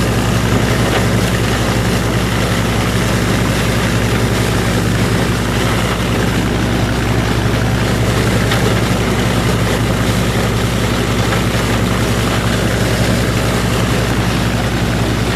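Minneapolis-Moline U302 Super tractor engine running steadily under load, pulling a flail chopper that is shredding corn stalks. A steady engine hum sits under the chopper's loud, even rushing noise.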